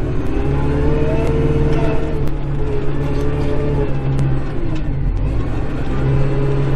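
Kubota Grand L5740 tractor's diesel engine running under load, heard from inside the cab; its pitch dips about two thirds of the way through and rises again near the end.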